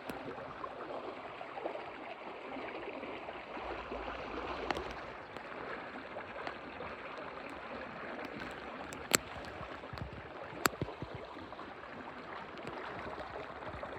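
Water rushing and gurgling along the hull of a Wayfarer sailing dinghy under way, with a few sharp clicks, the clearest two in the second half.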